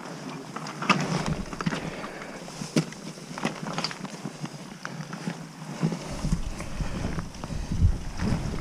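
Scuffs, scrapes and knocks of a climber's boots and hands on wet rock while scrambling, with a few sharper knocks. Wind starts buffeting the microphone about six seconds in.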